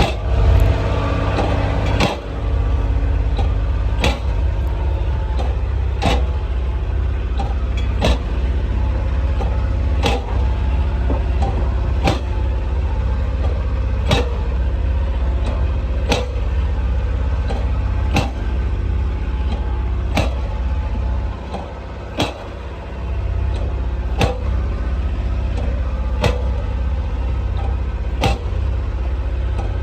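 Kubota RTV 1100 utility vehicle running with a heavy, steady low rumble, with a sharp click about every two seconds.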